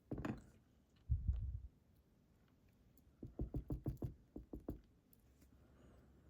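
Small knocks from handling a partly disassembled pin-tumbler lock while its pin stacks are dumped out: a soft thud, a low thud about a second in, then a quick run of about eight light knocks.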